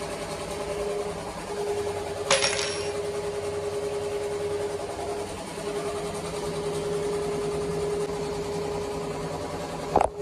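Ricoma multi-needle embroidery machine stitching, a steady hum with a fast even rhythm. A sharp metallic clink about two seconds in and a knock near the end come from the metal embroidery hoop and frame being handled.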